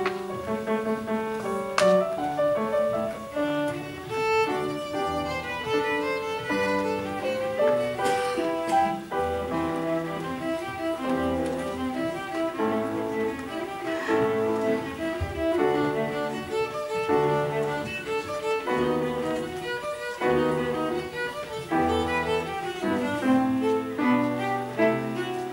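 Violin and piano duet: a violin plays a melody of many short notes over grand piano accompaniment, with low piano bass notes underneath.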